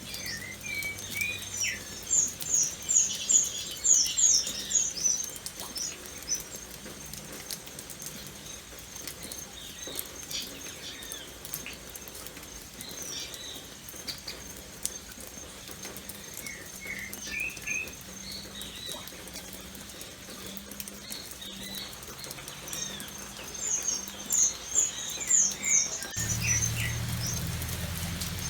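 Rain pattering steadily, with birds calling over it: a quick run of high chirps a couple of seconds in and again near the end, and scattered lower calls in between. A low hum comes in near the end.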